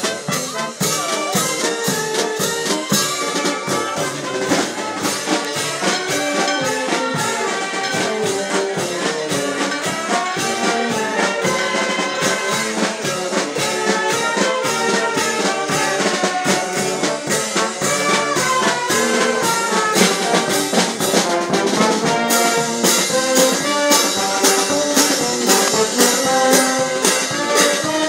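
Brass band music, trumpets and trombones playing a melody over a steady drum beat.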